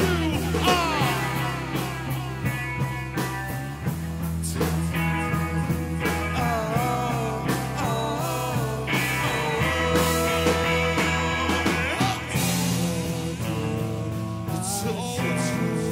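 Live rock band playing: electric bass holding low notes that change every few seconds, electric guitar, and drums with cymbals, with a singer's voice over the band.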